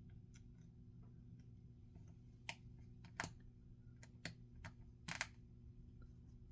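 Scattered light clicks and taps of a small screwdriver and tiny screws on a laptop's plastic case, over a low steady hum.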